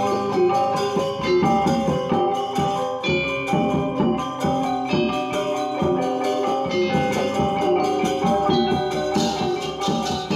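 Balinese gong kebyar gamelan playing an instrumental piece: bronze metallophones and gong-chimes struck in fast, dense interlocking patterns over sustained ringing tones. A bright, hissing shimmer of small cymbals comes in near the end.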